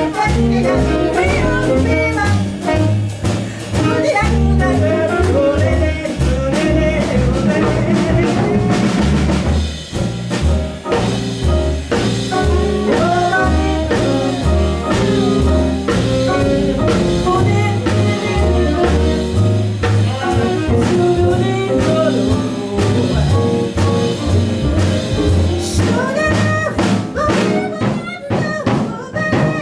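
A jazz-blues band playing, with a moving bass line under melody instruments and a drum kit. The drum hits grow busier near the end.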